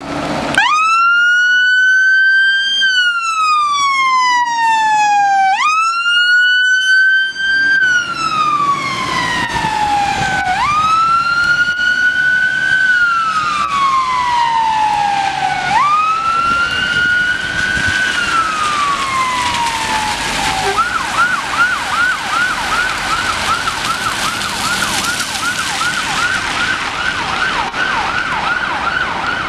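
Scania fire engine's siren sounding a slow wail, each cycle rising and then falling over about five seconds. About two-thirds of the way through it switches to a fast yelp of about three sweeps a second, growing fainter as the appliance drives away.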